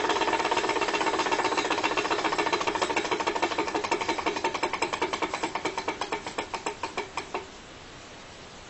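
Model V4 Stirling engine running with a rapid mechanical clatter that slows steadily and fades until it stops about seven and a half seconds in.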